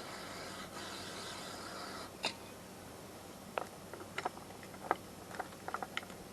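Rustling and scraping for about two seconds, then a scattered string of light clicks and taps as the chainsaw's opened-up bar area and its small parts are handled.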